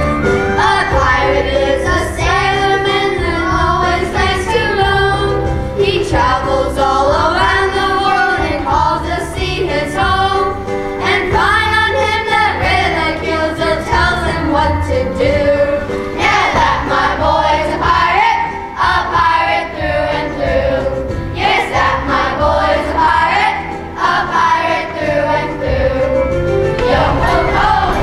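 A group of children singing a song together in unison over an instrumental accompaniment with a steady, sustained bass.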